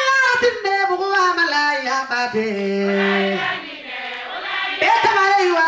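Chanted singing: a voice sings a melody in long held notes that slide up and down in pitch.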